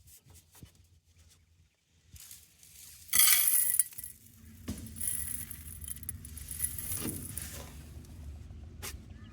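A brief metallic jingle about three seconds in, after a few faint clicks, followed by a steady low rumble.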